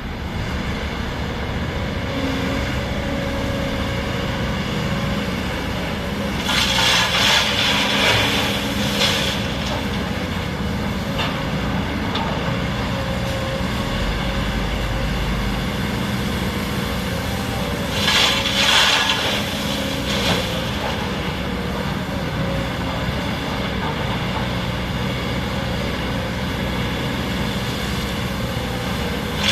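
Excavator diesel engine running steadily under load while it loads a dump truck. Two louder rushing spells, each two to three seconds long, come about seven and eighteen seconds in.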